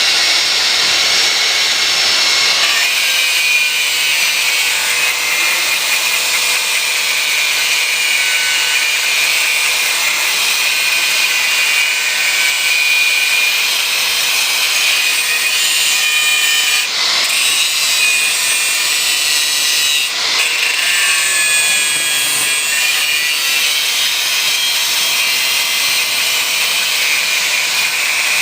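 Metal being ground with an abrasive grinder on a lathe: a steady high hiss with a faint wavering whine, broken by two brief dips about two-thirds of the way through.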